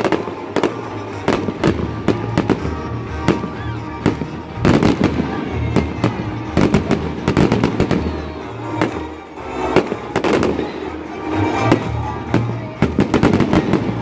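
Fireworks bursting overhead, many bangs and pops in quick succession, thickest from about four and a half seconds in and again near ten seconds, over music with a steady bass beat.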